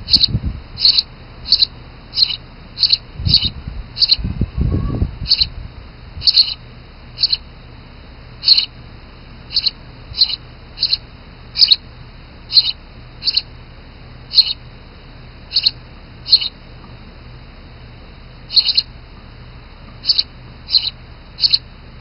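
Sparrow nestlings begging: short, high-pitched cheeps, in quick runs at first and then spaced about a second apart, with gaps. A low rumble comes right at the start and again between about three and five seconds in.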